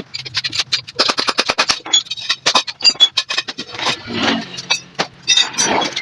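Rapid, irregular clicking and knocking of tools and parts being handled during motorcycle repair work, some clicks with a short metallic ring.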